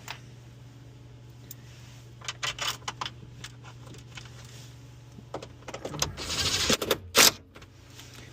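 Metal parts and tools clinking and rattling as a hybrid battery pack is bolted in, then a short burst from a cordless drill driving a bolt about six seconds in, ending in a sharp loud clack. A steady low hum runs underneath.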